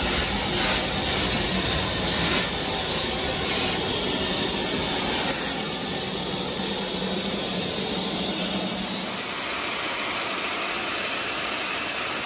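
BR Standard Class 4 2-6-4T steam tank locomotive drawing slowly in alongside, with a few sharp clanks in the first half, then a steady loud hiss of steam from its safety valves blowing off in the second half.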